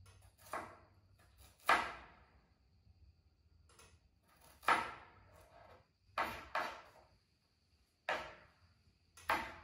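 Kitchen knife chopping garlic cloves on a cutting board: about seven single knocks at irregular intervals, the loudest about two and five seconds in.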